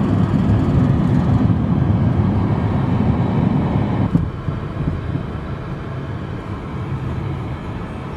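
Small mountain stream rushing over rocks close to the microphone, a steady, deep rumbling rush that eases a little about four seconds in.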